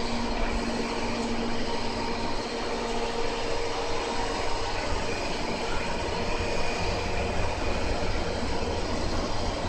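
EF64 electric locomotive with its 12-series coaches: a steady electrical hum and blower noise, with a low rumble that grows louder about seven seconds in.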